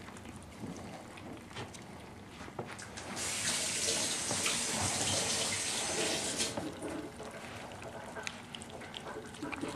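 Miniature pinscher puppies eating dry biscuits off a plate, with many small crunches and clicks. About three seconds in, a loud, steady hiss starts abruptly and stops just as abruptly some three seconds later.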